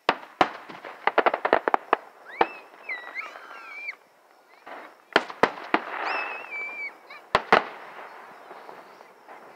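Aerial fireworks shells bursting: sharp bangs and a quick run of crackles in the first two seconds, then more single bangs around five seconds and seven and a half seconds. A few high wavering tones sound between the bangs.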